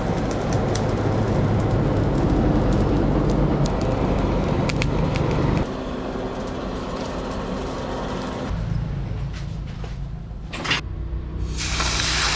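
A motor-driven machine running steadily with a low hum, its sound dropping in level twice, then a short hiss near the end.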